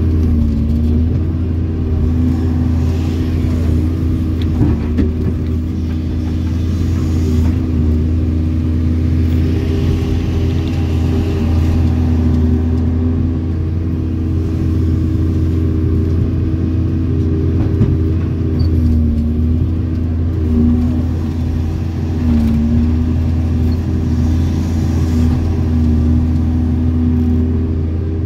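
Hydraulic excavator's diesel engine and hydraulic pumps running steadily under working load, heard from inside the cab, with a deep hum under the engine note. The engine note dips briefly about a second in and a few times later on.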